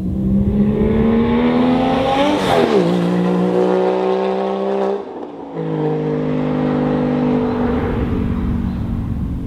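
Porsche 987.2 Boxster's flat-six accelerating through a SOUL Performance valved street exhaust. The engine note climbs, drops at an upshift about two and a half seconds in, then breaks off briefly at a second shift around halfway. It comes back at a lower pitch and slowly eases off.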